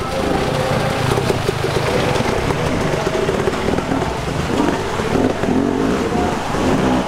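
Enduro dirt bike engines revving up and down repeatedly as the bikes are ridden and pushed up a rocky creek bed.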